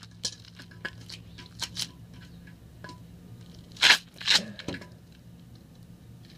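Metal hand tools clicking and scraping on a stubborn toilet tank bolt, with scattered sharp clicks and two loud, harsh scrapes about four seconds in.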